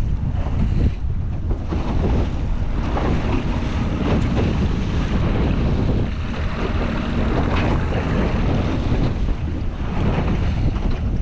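Strong wind buffeting the microphone as a steady low rumble, with water noise around a small boat.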